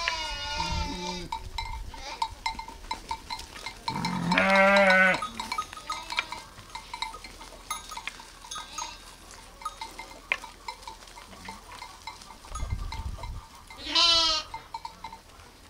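Sheep bleating: a call tails off at the start, a loud bleat of about a second comes about four seconds in, and a shorter, higher bleat comes near the end. Faint repeated clinks run between the calls.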